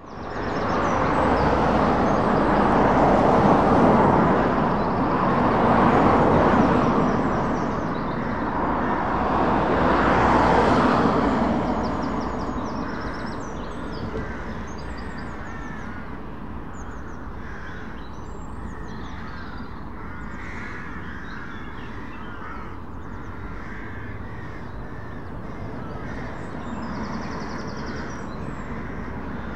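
Cars passing close on an open road, each a swell of tyre and engine noise, three in the first twelve seconds. After that the traffic is quieter and birds call and sing over it, and the low drone of an approaching lorry grows near the end.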